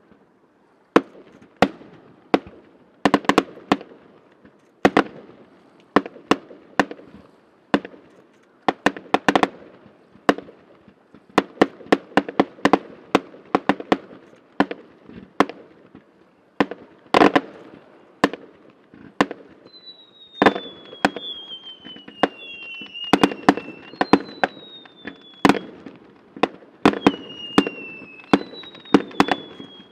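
Fireworks display: a dense, irregular run of sharp shell bursts, often several a second, each trailing off in an echo. From about two-thirds of the way through, a string of high whistles, each falling a little in pitch, sounds over the bangs.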